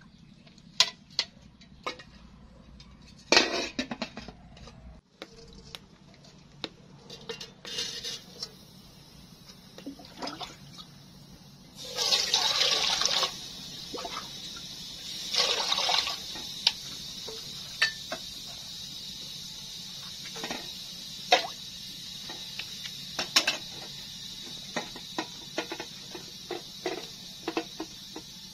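Water pouring into an aluminium pot in two rushes, the second shorter. Before and after, small clicks and clinks of aluminium cookware being handled, over a faint steady high hiss.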